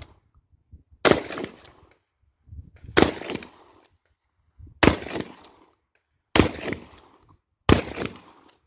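Dickinson pump-action shotgun firing five shots in a drill, about one and a half to two seconds apart and coming quicker toward the end, with the pump worked between shots.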